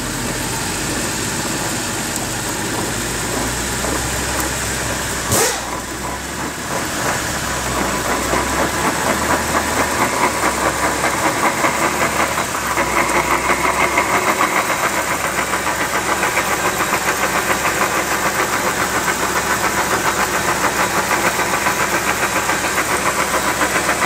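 BMW X3's failed front differential grinding and clunking as the front axle shafts spin in gear, over the running engine given a little gas. There is a sharp knock about five seconds in, then a fast, even pulsing from about seven seconds on. The differential has run dry of fluid and is broken internally.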